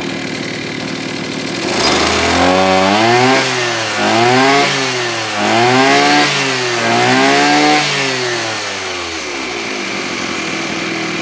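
Maruyama AD26AS 26 cc two-stroke brush cutter engine running smoothly at idle, then revved up and down four times from about two seconds in, settling back to idle near the end.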